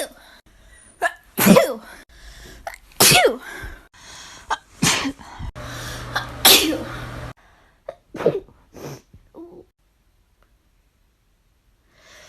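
Several people sneezing one after another: about four loud sneezes a second or two apart, then a couple of softer ones, before it falls quiet.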